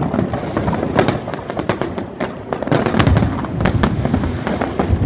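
Aerial fireworks shells bursting in a dense, rapid barrage of bangs and crackles over a steady rumble, with the sharpest reports about one, three and four seconds in.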